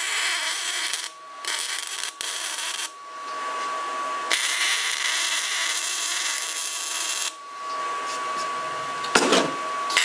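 MIG welding on square steel tubing: the arc's hiss comes in several runs with short breaks, the longest about three seconds, with a faint steady whine under it.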